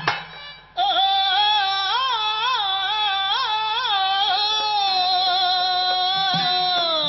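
A solo voice singing a slow, ornamented melodic line in a Telugu burrakatha ballad. It breaks off briefly about half a second in, then gives way to a long held note that falls away near the end.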